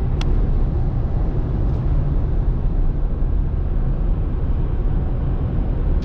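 Steady low rumble of road and engine noise inside a car's cabin at highway speed.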